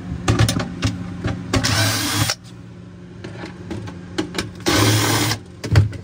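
Cordless drill-driver backing screws out of a refrigerator's plastic freezer back panel in two short bursts of under a second each, with clicks of the bit and screws between. A steady low hum from the running refrigerator sits underneath.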